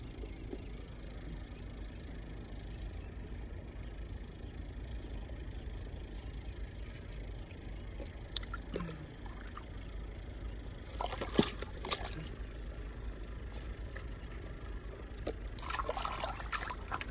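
Shallow water splashing and trickling in short bouts, about eleven seconds in and again more busily near the end, as a hand moves in it, over a steady low rumble.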